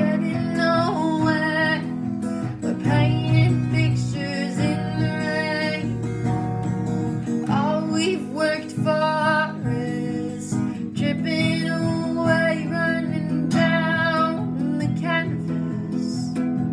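A girl singing in sung phrases while strumming chords on an acoustic guitar, accompanying herself.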